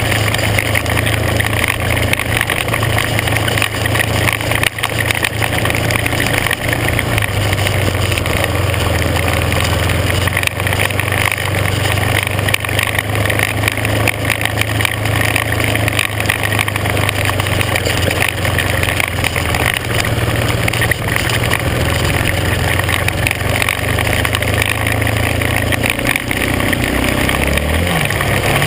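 A vehicle engine runs at a steady speed on a gravel road, under a constant rushing noise of wind and tyres. Near the end the engine note drops lower.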